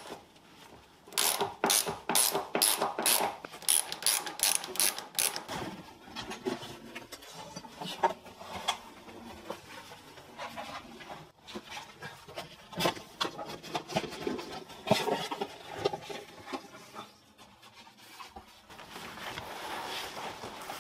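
Hand work on a car's interior while the rear seat and plastic pillar trim come out: a run of about a dozen evenly spaced sharp rasping strokes, about three a second, then scattered clicks, knocks and rubbing.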